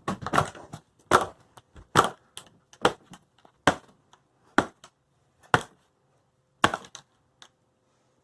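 A series of sharp cracks or impacts, roughly one a second, each short with silence between.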